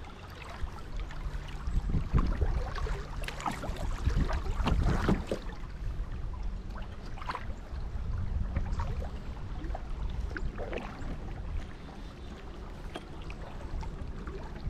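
Fast river current rushing and splashing against a kayak's hull as it floats through a riffle, with a low rumble underneath. The splashing comes and goes, loudest about two seconds in and again around the fourth and fifth seconds.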